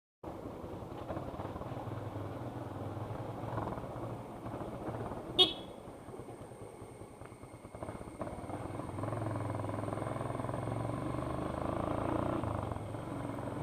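A vehicle's engine running steadily while driving, with one short, sharp, high sound about five and a half seconds in.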